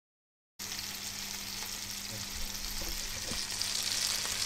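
A steady crackling hiss over a low hum, starting abruptly about half a second in.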